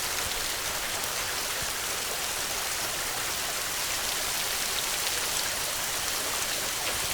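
Heavy rain falling steadily, a constant even hiss of drops with no thunder.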